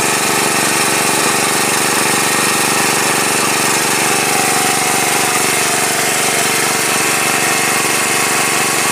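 Small petrol engine running steadily at an even speed, typical of a portable water pump draining the ditch.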